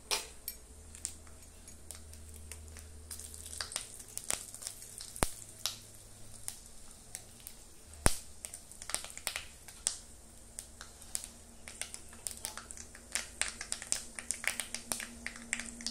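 Panch phoron spices and dried red chillies frying in a little hot oil in an iron kadhai: irregular crackling and popping, with two sharper pops about five and eight seconds in, over a low steady hum.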